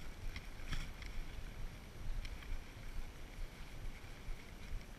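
Wind rumbling unevenly on a chest-mounted GoPro's microphone, with a few faint scattered clicks.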